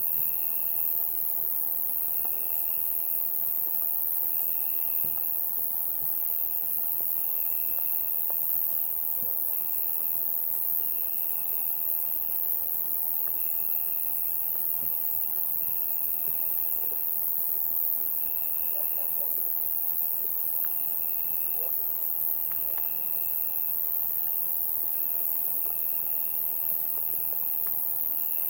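Summer night insect chorus: a dense, steady, high-pitched shrilling of many insects. Over it one cricket-like insect trills in pulses of about a second, repeating every second and a half or so.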